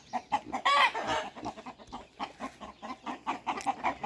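Chickens clucking, short calls repeating several times a second, with a louder call about a second in.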